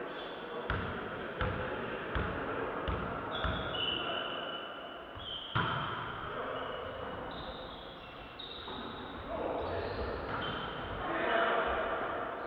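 A volleyball bouncing on a gym floor, about one bounce every 0.7 s for five bounces, then a single harder hit of the ball, as in a player bouncing the ball before serving and then serving. Voices rise in the hall near the end.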